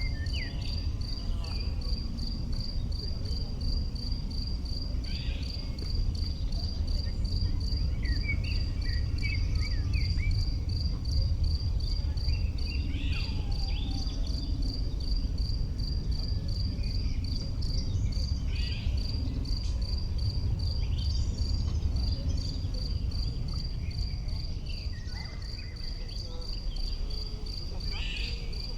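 A cricket chirping steadily, a high-pitched chirp repeated about two to three times a second, over a low rumble, with scattered short bird calls.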